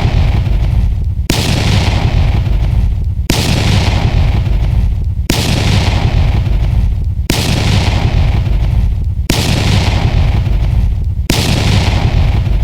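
Explosion-like blast sound effect repeated about every two seconds, each starting suddenly and fading out into a deep rumble.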